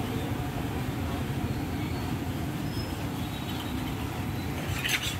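Steady low rumble of street background noise, with a short sharp clink near the end.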